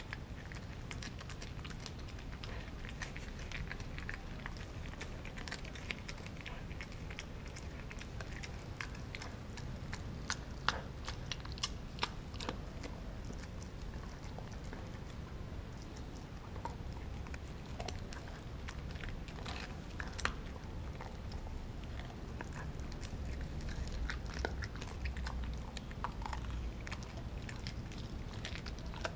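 Mixed-breed dog chewing and biting a frozen raw turkey steak: irregular crunches and clicks of teeth working through the frozen meat.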